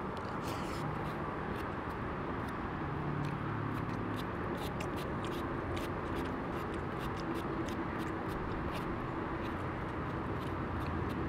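Steady hum of distant road traffic, with a run of small sharp clicks and scrapes from a spoon in a foam takeout container and chewing of rice.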